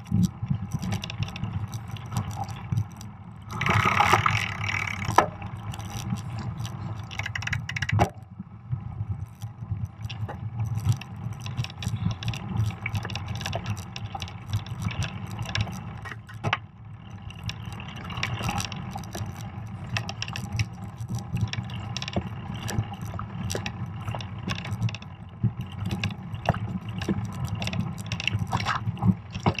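Fat bike rolling over a snowy singletrack: a steady low rumble from the wide tyres on snow, with the chain and bike rattling and clicking over bumps. A louder scraping rush about four seconds in.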